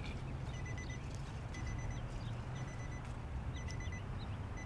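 Electronic beeping: a short burst of quick high beeps about once a second, over a steady low rumble.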